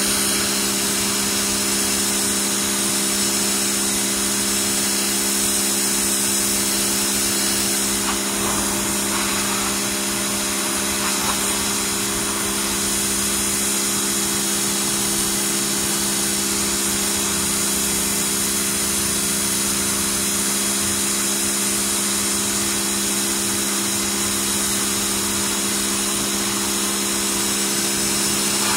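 Pressure washer running steadily, its motor and pump humming under the hiss of the spray jet striking wet concrete.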